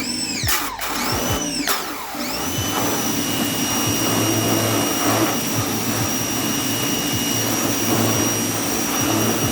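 RYOBI 1600 PSI electric pressure washer running and spraying: its motor and pump whine swoops up and down a few times in the first two seconds, then holds a steady high whine over the constant hiss of the water jet and a low motor hum.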